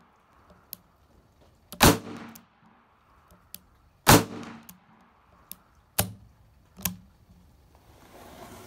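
Power Custom Grand Master custom revolver firing: two loud shots about two seconds apart, each with a short echoing tail, then two quieter sharp reports close together. Faint clicks come between the shots.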